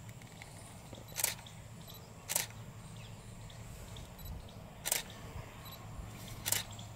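Four short, sharp clicks, spaced one to two and a half seconds apart, over a steady low hum.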